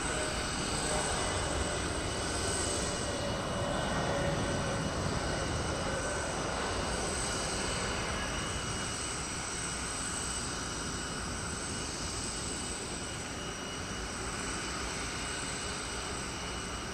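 Jet airliner engines running: a steady rush with a thin, high whine over it, easing off slightly in the second half.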